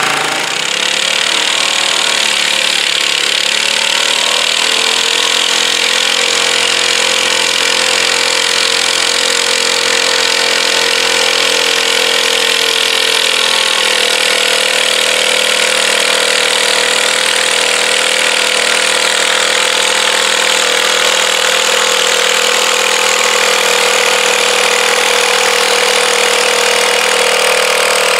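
Garden tractor engine revving up as the pull starts, then running flat out under load as it drags the weight-transfer sled; the pitch climbs over the first few seconds and then holds steady.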